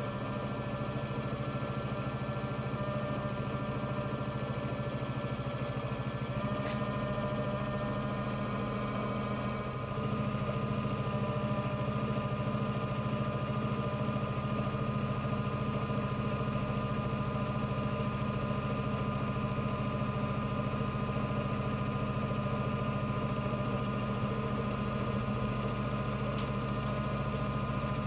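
Small electric motor of a toy Bosch Logixx 8 washing machine running steadily, humming with a fixed pitch. About ten seconds in the hum shifts and gets slightly louder, as if the drum changes its running.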